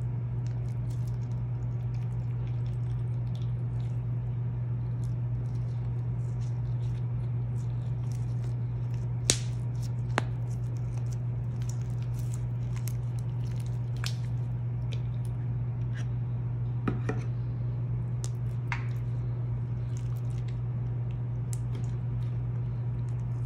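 Slime being squeezed and kneaded by hand: scattered wet squishes and small clicks and pops, the sharpest about nine and ten seconds in, over a steady low hum.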